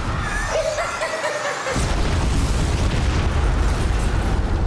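Film-trailer soundtrack: music over a deep boom, with wavering high tones through the first two seconds, then a loud, dense rumble from about two seconds in.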